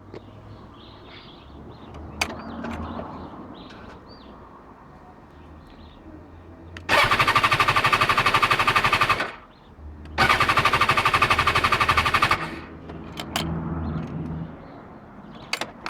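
BMW S1000XR motorcycle's starter chattering: two presses of the starter, each a rapid machine-gun-like clatter lasting about two seconds, without the engine catching: the bike won't start.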